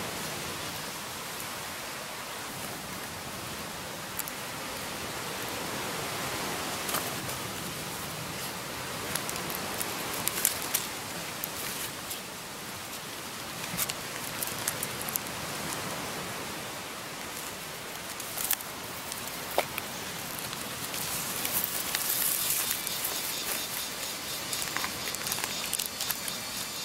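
Banana leaves rustling and crinkling as they are folded and handled, with scattered crackles that come more often near the end, over a steady background hiss.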